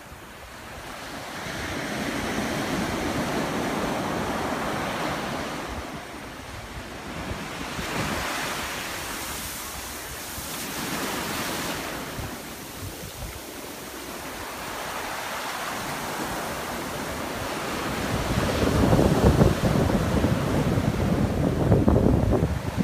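Ocean surf breaking and washing up a sandy beach, swelling and fading every few seconds, with wind buffeting the microphone. The sound is loudest and lowest near the end.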